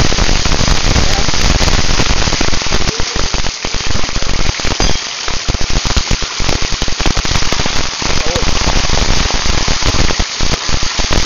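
A school of piranhas thrashing at the water surface in a feeding frenzy: continuous, loud churning and splashing made of many small crackling splashes.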